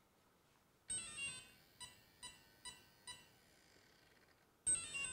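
Castle Creations Mamba X ESC powering up and sounding its start-up beeps through the brushless motor: a short run of tones about a second in, four short beeps about 0.4 s apart, then another run of tones near the end.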